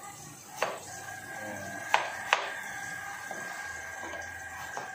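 Kitchen knife cutting a potato by hand over a sink, with three sharp clicks of the blade, two of them close together, over tap water running. A steady high whine sets in about a second in.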